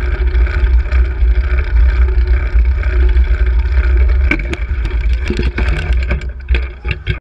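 Wind buffeting and road noise on a bicycle-mounted camera while riding, a loud steady rumble. From about four seconds in, a rapid series of clattering knocks and rattles takes over as the bike slows toward the road edge.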